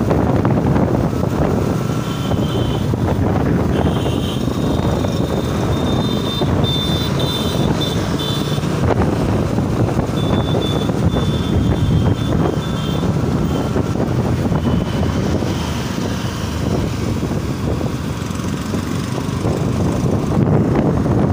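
Motorcycle riding at highway speed: steady wind rushing over the microphone over the engine and road noise. A faint high whine comes and goes in the first half.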